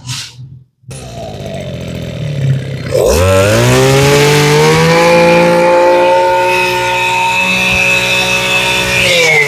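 Makita MEM232 23cc brush cutter engine idling, then throttled up about three seconds in, its pitch rising to high revs and holding steady. Near the end the throttle is released and the pitch falls back.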